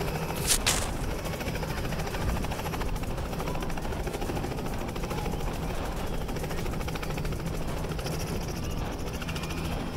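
Helicopter rotor running with a steady, rapid chop over a low rumble. Two sharp cracks sound about half a second in.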